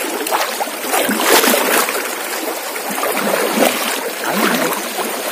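River water rushing and splashing around a person wading through the current: a steady rush of water.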